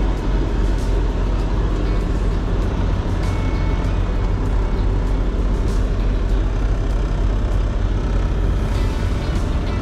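Semi-truck's diesel engine running steadily, heard from inside the cab.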